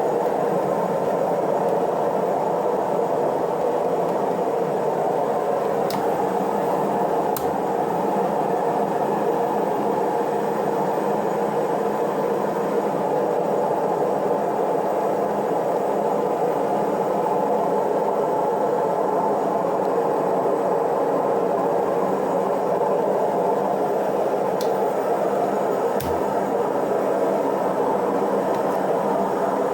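Hotpoint Ariston washing machine on its spin cycle: a steady, loud whir with no change in speed, and a few faint ticks scattered through it.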